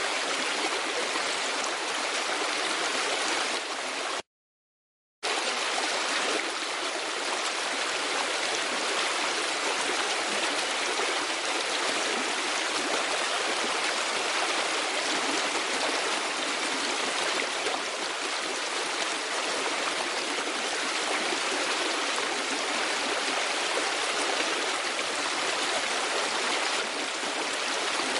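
Steady rush of running water, unchanging in level, with a dead gap of about a second a little over four seconds in.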